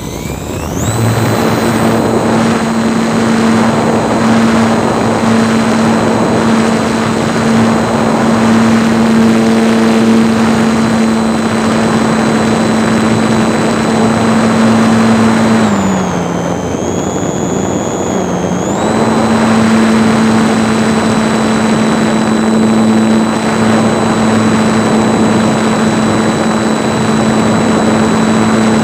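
RC model airplane's motor and propeller running steadily at high throttle: a constant drone with a thin high whine over a loud rushing noise. About halfway through, the pitch drops for a few seconds, then comes back up.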